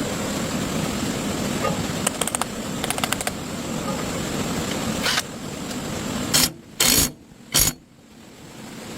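Steady mechanical running noise, like an engine, with runs of clicks about two and three seconds in. Later come several short loud bursts separated by sudden drops, and the level dips near the end.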